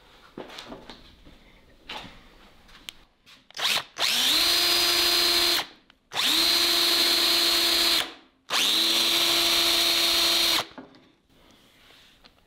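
A DeWalt power drill driving a bit into oak for pilot holes, with a brief blip and then three runs of a couple of seconds each. Each run spins up quickly and holds a steady whine. The user then judges the bit to be the wrong one for the job.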